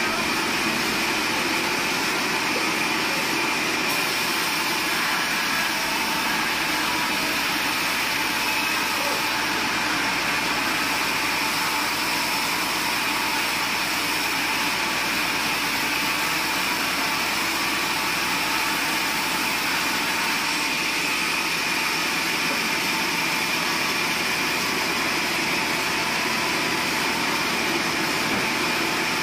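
Large log band saw running steadily and sawing through a log as it is fed along the carriage, a continuous machine noise with a steady high tone over it.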